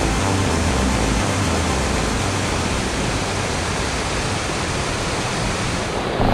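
Whitewater rapid rushing over boulders: a steady, even roar of churning water.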